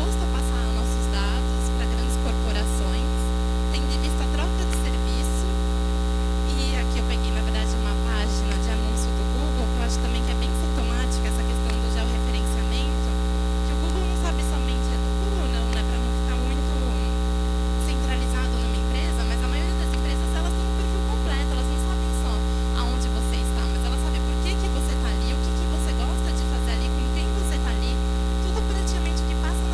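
Loud, steady electrical mains hum with a long stack of evenly spaced overtones, holding constant, with faint scattered crackles.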